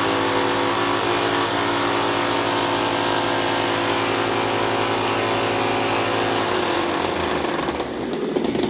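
Zenoah G38 38 cc single-cylinder two-stroke model-aircraft engine running steadily at high throttle with its propeller. About three-quarters of the way through its note falls as it is throttled back, and it drops into a rapid, uneven pulsing idle.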